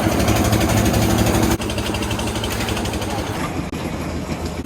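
A motor engine running steadily with a fast, even beat. The level drops abruptly about a second and a half in, and the engine sound carries on at a lower level.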